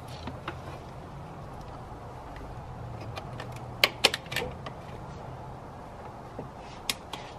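Sharp clicks and clacks of a battery charger's clamps being fastened onto a car battery and the charger being handled in the engine bay. There is a quick cluster of clicks about four seconds in and another click near the end, over a steady low hum.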